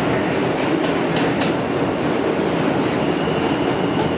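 Interior of an R160A subway car running through the tunnel: a steady rumble of wheels on rail, with two sharp clicks of the wheels a little over a second in.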